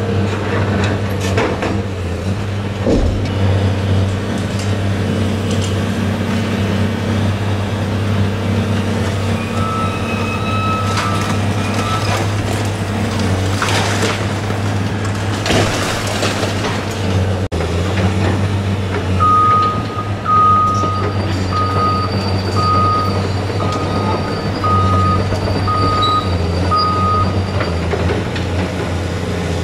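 Diesel engine of a Cat 330C hydraulic excavator running steadily under load as it demolishes a concrete building, with concrete debris crashing down about halfway through. In the second half a backup alarm beeps about nine times, roughly once a second.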